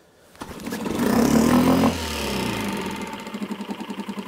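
Mercury 3.5 hp single-cylinder outboard catching on a pull-start cold start with the choke out (the third pull). It runs up briefly, then settles into a steady fast idle with a rapid, even pulse of about ten beats a second.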